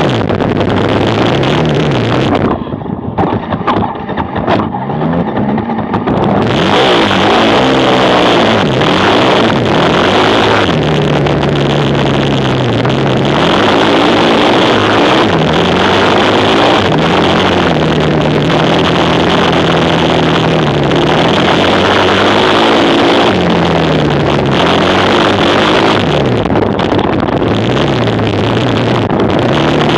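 Racing quad-bike engines revving, their pitch rising and falling again and again, with a duller, quieter patch a few seconds in.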